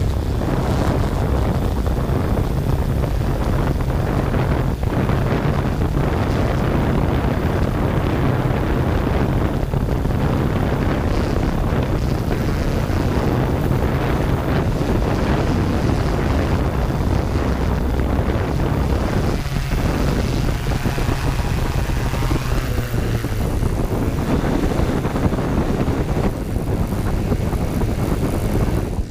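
Yuneec Q500 quadcopter's electric motors and propellers running steadily as the drone descends and sets down on gravel, heard close up from the drone's own onboard camera.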